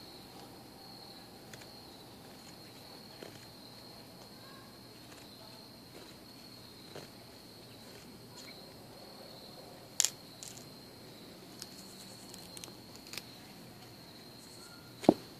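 Small knife blade shaving a wooden stick, making scattered light scrapes and clicks, with a sharp loud click about two-thirds through and another near the end. Insects trill steadily throughout.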